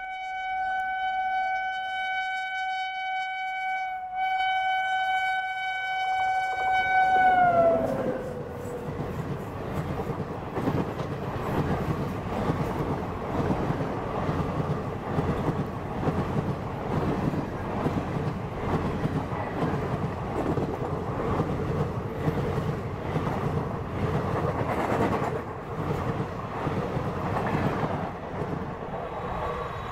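WAP-7 electric locomotive's horn held for about eight seconds, with a brief break about four seconds in, its pitch dropping as the locomotive passes. Then the train's passenger sleeper coaches rumble past close by, their wheels clattering rapidly over the rail joints.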